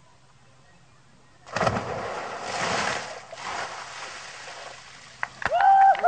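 A person landing in an inflatable pool with a sudden loud splash about a second and a half in, followed by a couple of seconds of water splashing and sloshing that fades away. Near the end a person starts shouting.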